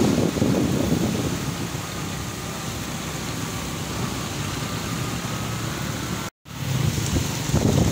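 Motorcycle engine running while riding, under a steady hum of road and air noise, with gusts of wind buffeting the microphone at the start and again near the end. The sound cuts out completely for a moment about six and a half seconds in.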